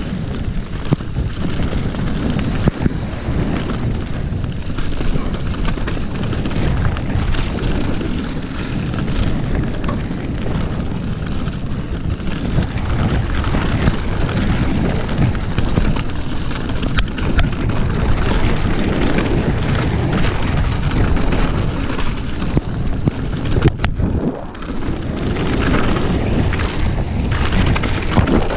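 Wind buffeting a helmet or chest-mounted GoPro's microphone at downhill speed, mixed with a mountain bike's tyres and frame rattling over a rough, rocky trail, with frequent small knocks. The noise dips briefly about 24 seconds in.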